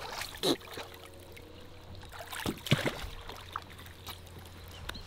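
Lake water splashing and lapping at the side of a boat as a hooked bass is drawn to the hull and grabbed by hand, with a few sharper splashes about two and a half seconds in.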